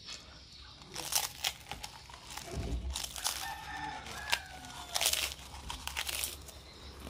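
A rooster crowing once, a long call in the middle, among loud bursts of crinkling and scraping noise.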